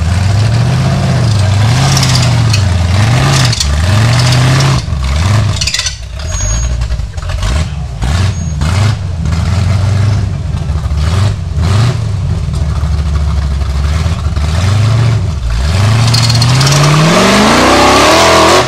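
Off-road 4x4's engine revving under load on a steep climb, its pitch rising and falling about once a second, then climbing in one long rise near the end.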